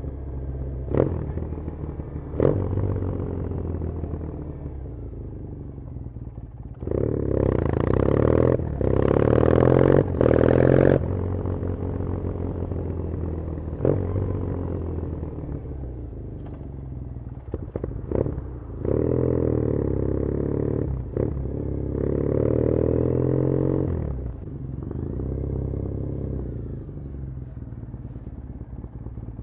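A 2013 Triumph Thruxton 900's air-cooled parallel-twin engine, heard through its aftermarket TEC exhaust while riding. It pulls hard under throttle twice, about seven and again about nineteen seconds in, with several sharp clicks in between. Near the end it settles to a lower, quieter run as the bike slows.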